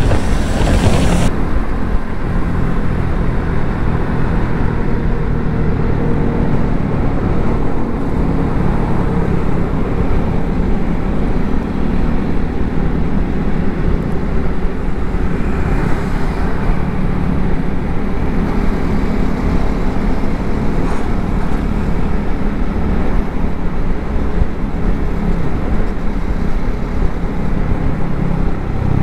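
Motorcycle engines running steadily at highway cruising speed, with road noise.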